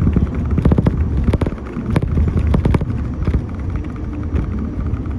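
Moving bus heard from inside: a steady low engine and road rumble, with a scatter of rattles and knocks in the first three seconds.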